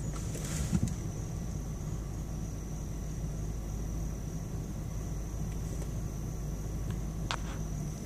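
Steady low hum of a crowded honey bee hive, bees buzzing around the box, with a thin steady high-pitched tone above it and a faint click or two.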